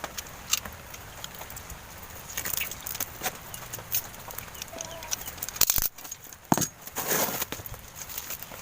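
A parcel of plants being unpacked by hand: scattered clicks, knocks and rustling of packaging, with a few sharper knocks and a louder rustle about six to seven seconds in.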